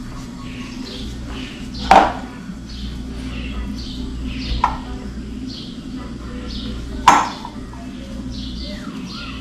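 Dough being kneaded by hand on a granite countertop, with two sharp knocks about five seconds apart, the loudest sounds, and a smaller one between them. A bird chirps repeatedly in the background, about twice a second.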